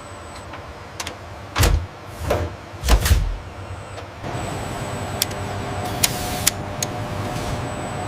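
Factory machinery: three heavy thuds, each about a second apart, followed by a steady motorised hum with a few sharp clicks.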